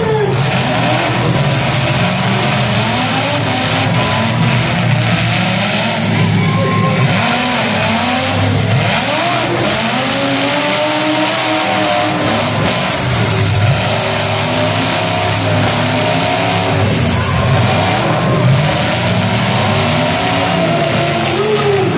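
Several demolition derby cars' engines revving up and down together, the pitches rising and falling over and across each other, loud throughout.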